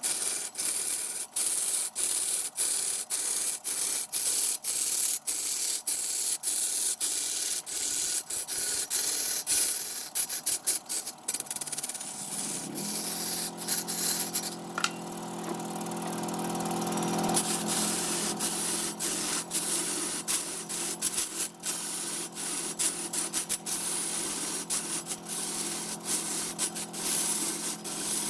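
Wood being sanded on a turning lathe: a steady rasping hiss broken by short gaps about every half second or so. About twelve seconds in a low machine hum rises in and holds steady beneath it.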